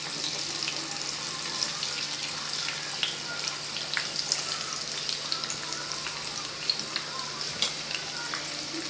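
Samosas deep-frying in hot oil in a kadai on medium flame: a steady sizzle with frequent small crackles and pops.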